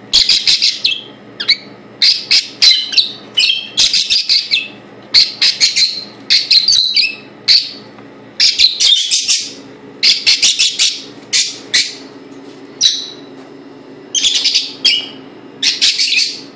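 Parrot chirping in loud bursts of rapid, high chirps, each burst lasting about a second, with short pauses between.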